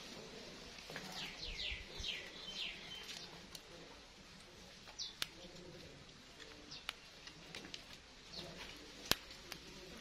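Plum-headed parakeet chirping: a quick run of short, high calls falling in pitch between about one and three seconds in, and another high call about five seconds in. Scattered sharp clicks follow, the loudest a single click near the end.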